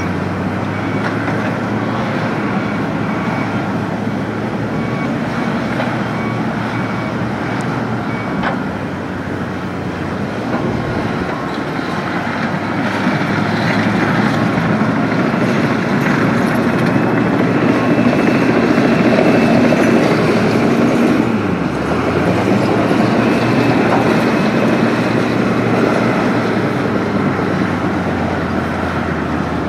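Excavator's diesel engine running with a steady low hum. It grows louder partway through, dips briefly, then picks up again.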